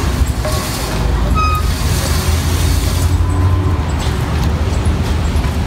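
Steady low rumble of road traffic, with a brief high tone about a second and a half in.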